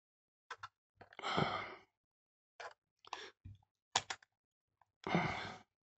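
A sigh, then a handful of small plastic clicks and taps as a small screwdriver and fingers work at the stuck battery compartment door of a Canon EF-M film camera, and a second, longer sigh near the end.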